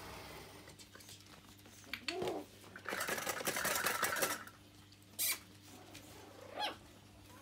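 Smooth Brussels Griffon puppies scuffling on a fabric pad: paws scrabbling and the pad rustling, loudest for about a second and a half in the middle, with a couple of short puppy yips.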